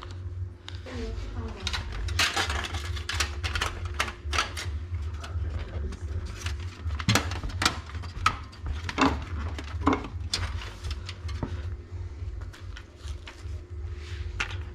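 Irregular clicks, taps and knocks of computer parts being handled, metal and plastic set down and moved, over a steady low hum.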